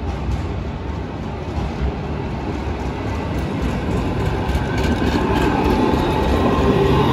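AnsaldoBreda Sirio low-floor electric tram running along street track and passing close by, its rumble growing louder as it approaches. From about halfway through, a high whine of several steady tones rises over the rumble and is loudest near the end.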